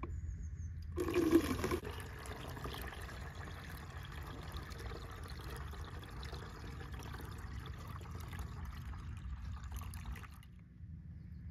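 Liquid pouring in a steady stream for about nine seconds. It starts with a louder splash about a second in and stops suddenly near the end.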